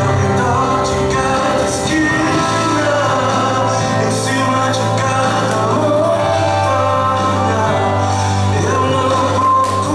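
A song playing loudly, with a singing voice over sustained bass notes.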